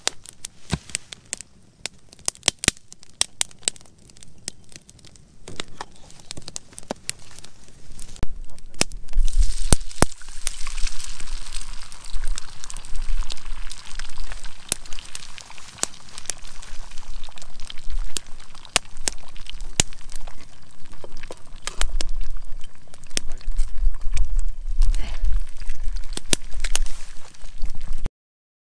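Wood campfire crackling and popping with sharp snaps. From about nine seconds in, a steady sizzle of an egg frying in the pan over the fire joins the crackling, and the sound cuts off abruptly near the end.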